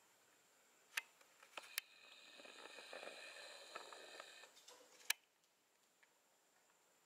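Camera's zoom lens motor whirring faintly for about two seconds in the middle as the lens zooms in, with a few sharp clicks before it and one just after.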